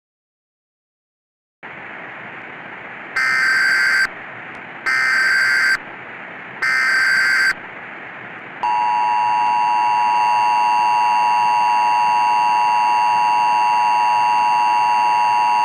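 Emergency Alert System SAME header: after a moment of silence a static hiss comes up, then three short screeching data bursts about a second apart, followed about eight and a half seconds in by the steady two-tone EAS attention signal.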